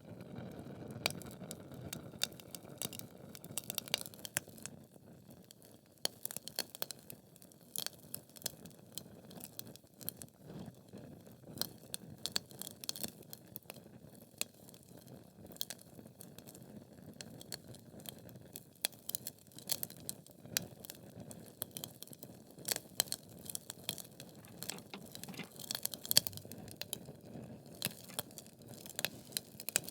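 Wood fire in a fireplace crackling: irregular sharp pops and snaps from the burning logs over a soft low rumble of the flames.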